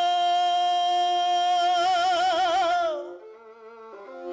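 A singer holds one long note, wavering into vibrato near its end, over a steady lower instrumental tone. The voice stops about three seconds in, and a bowed string instrument carries on more quietly, moving through a few notes.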